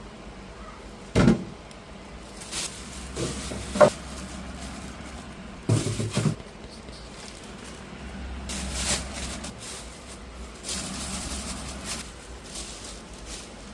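Groceries being handled and put into a refrigerator: a few sharp knocks and thumps about a second in, near four seconds and around six seconds, with stretches of rustling later on.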